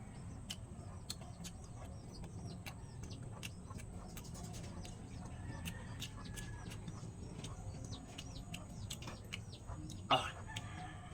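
Chickens clucking in the background, with frequent short wet clicks of someone chewing banana peel. A brief louder sound about ten seconds in.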